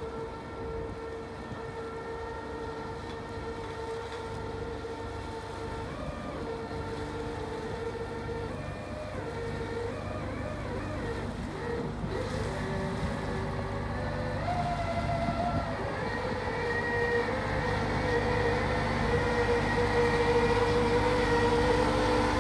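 Aquatic weed harvester's engine and hydraulic drive running, a steady drone with a held whining tone that shifts pitch a little midway, growing louder as the craft comes closer.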